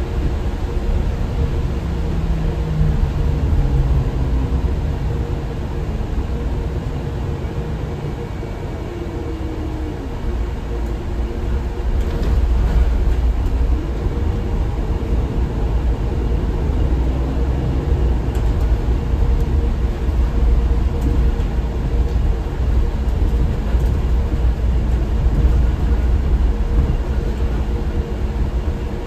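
Inside a MAN Lion's Intercity LE 13 diesel bus on the move: a steady low engine and road rumble. It eases off for a few seconds, then grows louder again about twelve seconds in as the bus picks up speed.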